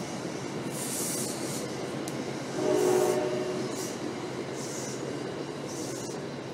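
NJ Transit commuter train passing, with the steady running noise of its cars on the rails. About halfway through, a horn chord of several notes sounds for about a second.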